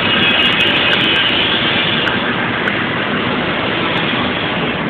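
Steady machinery noise, an even rushing hum that holds unchanged throughout.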